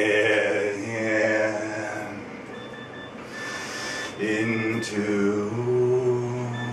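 A man chanting in a low voice, holding long steady notes. A thin, steady high tone sounds faintly alongside, starting about two and a half seconds in and breaking off now and then.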